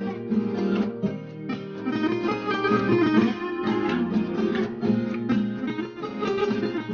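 Background music: plucked acoustic guitar playing a continuous melody.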